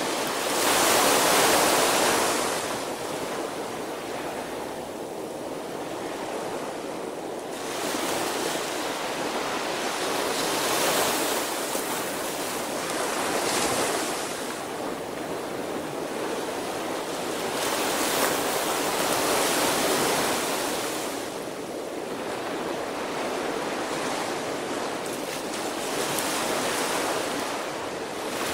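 Small ocean waves breaking and washing up a sandy beach. The surf swells and fades every several seconds, loudest about a second in.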